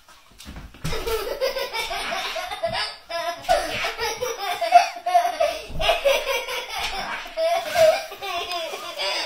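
People laughing hard, with a few dull thumps of a husky landing as it jumps after a laser dot.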